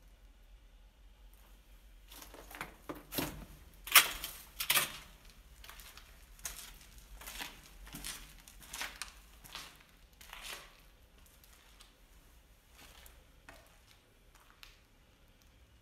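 Footsteps crunching on rubble and grit over a concrete floor in a small concrete room, about one step every three-quarters of a second. The steps are loudest a few seconds in and thin out to a few faint ones near the end.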